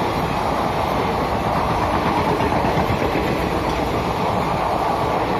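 Indian Railways sleeper-class passenger coaches running past at speed: a loud, steady rumble and rattle of steel wheels on the rails.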